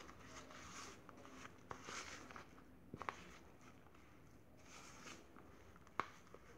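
Metal spoon stirring a thick, grainy paste in a bowl: faint scraping, with a light clink of the spoon against the bowl about three seconds in and a louder one near the end.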